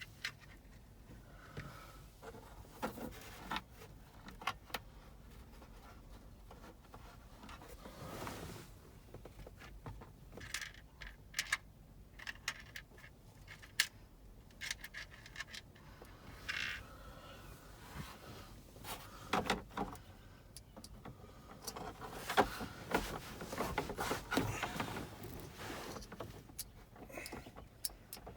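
Irregular clicks, clinks and short scrapes of hand work with a screwdriver, small metal screws and plastic parts, busier in the last third.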